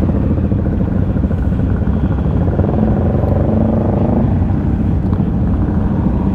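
Honda CRF250 Rally's single-cylinder four-stroke engine running steadily at low speed, heard close up, with other motorcycle engines running around it.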